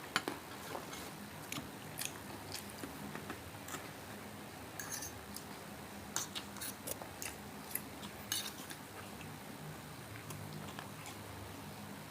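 Eating sounds: chewing and crunching of crispy fried pork belly, with irregular short crackles and clicks.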